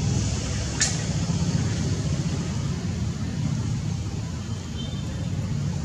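Steady low rumble like a motor vehicle's engine running, with one sharp click about a second in.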